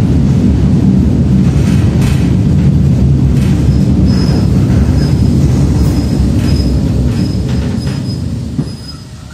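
PolRegio EN57 electric multiple unit running, heard from inside the carriage: a steady low rumble of wheels on rails with faint knocks. From about four seconds in, a faint high squeal comes and goes. The rumble drops away near the end.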